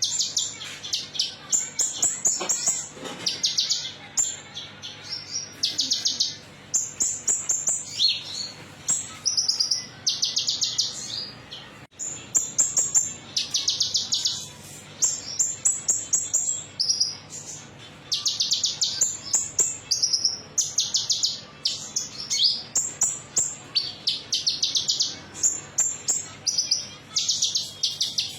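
A konin songbird singing a fast, high, metallic-toned song of short trilled phrases in quick succession with brief pauses between them. This is a lure song of the kind played to stir caged birds into singing.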